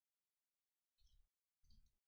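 Two brief, faint rustles of trading cards being slid and flipped through by hand, about a second in and again near the end, with near silence between.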